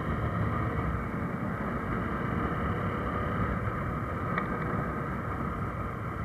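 Motorcycle riding at a steady cruising speed: the engine running evenly under wind and road noise on the bike-mounted camera.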